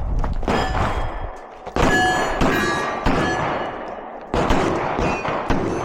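A Glock 17 Gen 6 pistol firing 9x19 rounds in a rapid string, with the steel targets ringing as they are hit. Several sharp shots come about half a second apart, with a short pause about a second in.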